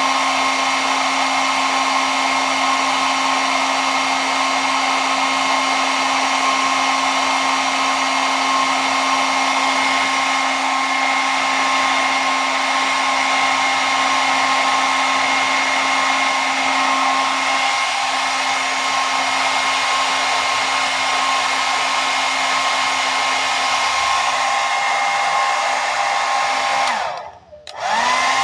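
Hair dryer running with a steady rushing blow and a steady motor whine. About a second before the end it briefly dies away and then comes straight back up to full strength.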